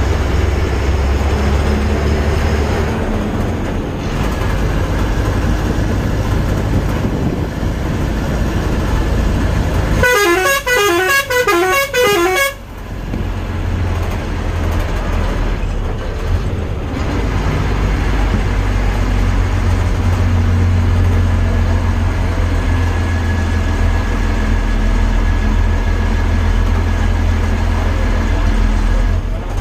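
Road vehicle travelling, a steady low rumble of engine and road noise. About ten seconds in, a horn sounds a quick, repeating run of falling notes for about two and a half seconds.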